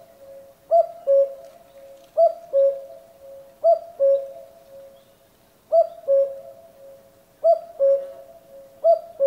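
Common cuckoo calling its two-note "cuck-oo", a higher note falling to a lower one. The call comes six times at about one-and-a-half-second intervals.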